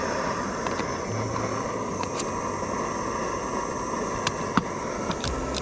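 Gas burner of an OEX jet-boil style canister stove running with a steady hiss under its pot of water. A few light clicks and knocks come from the pot's lid and folding handle being handled, the sharpest about four and a half seconds in.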